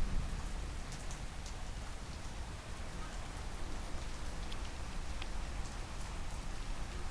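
Steady rain falling in a thunderstorm: an even hiss with scattered sharp ticks of single drops and a steady low rumble underneath.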